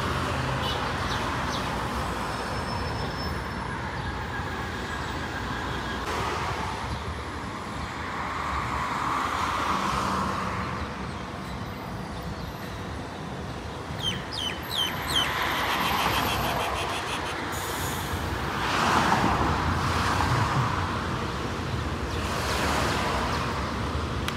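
Traffic on a multi-lane city road: vehicles passing one after another, the noise swelling and fading every few seconds. A few short high chirps sound about fourteen seconds in.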